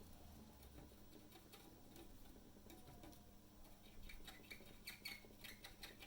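Faint small clicks and scratching from hand tools worked on a PlayStation 5 circuit board, getting busier in the last two seconds.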